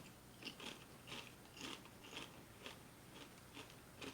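Faint crunching of a kettle-cooked potato chip being chewed, in short crisp bites about twice a second.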